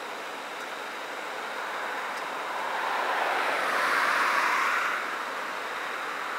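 A vehicle passing by: its road noise swells to a peak about four seconds in, then fades. It is heard from inside a car over a steady hiss.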